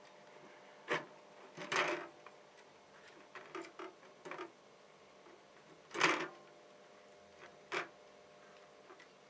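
Small workbench handling noises: a few separate clicks and short scrapes as small tools and thin wires are picked up and worked, with the two loudest scrapes at about two seconds and six seconds in.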